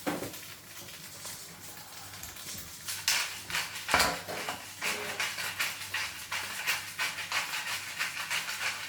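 Egg sizzling in a frying pan while it is being stirred and broken up: a steady hiss, then from about three seconds in a run of short scraping strokes, with one sharp knock about four seconds in.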